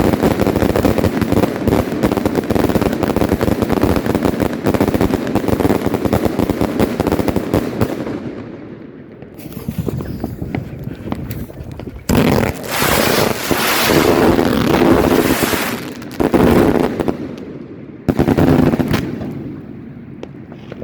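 A fireworks finale: rapid-fire salute cakes bang in a dense, continuous barrage for about eight seconds. After a short lull, three long loud hissing bursts of further fireworks follow.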